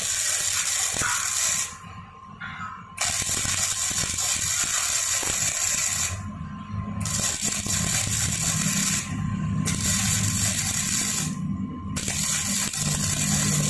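Gasless flux-core wire welder (Daiden MIGI 130) arcing on 1.7 mm steel: a loud, even crackling sizzle in runs of a few seconds, broken four times by short pauses, about two, six, nine and eleven seconds in.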